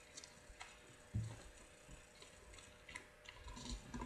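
Sheet of origami paper being folded and creased by hand: faint scattered crinkles and light taps, with one soft thump about a second in.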